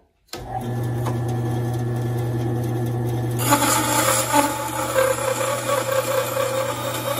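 WEN 3962 10-inch bandsaw running with a steady motor hum; about three and a half seconds in, the blade begins cutting a strip of wood and the sound turns louder and rougher.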